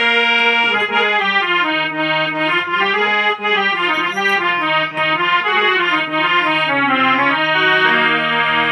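Harmonium playing a melody that steps up and down over a steady held low note. About eight seconds in, the tone turns brighter.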